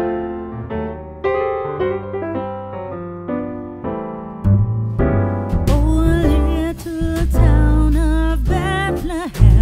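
Background music: electric piano chords that are joined about halfway through by bass, drums and a wavering lead melody.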